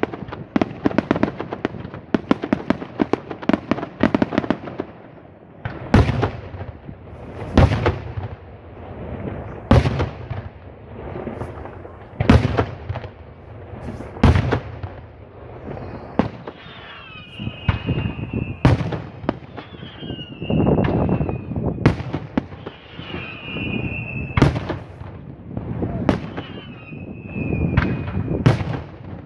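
Daytime fireworks battery: a dense run of rapid cracking bursts for the first few seconds, then single sharp aerial shell bangs about every two seconds. In the second half, falling high whistles sound between the bangs.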